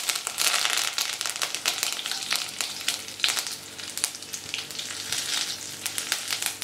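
Chopped onions frying in hot coconut oil in a nonstick pan, sizzling with many small pops while a wooden spatula stirs them. The sizzle is loudest in the first second or so, just after the onions go in, then eases a little.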